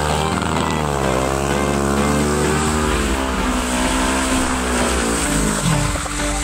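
Yamaha YFZ quad with a swapped-in Kawasaki Z650 engine revving hard during a rear-wheel burnout on wet asphalt, the revs rising and falling over and over. Near the end the pitch drops and climbs again as the quad pulls away.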